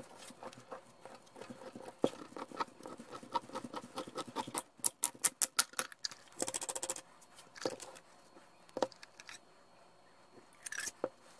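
Oil filter cutter being worked around a sheet-metal oil filter can, a run of small metallic ticks and clicks that speeds up into fast, even clicking, then scraping and knocks as the cut can is pulled off its base plate and the parts are handled. A short scrape comes again near the end.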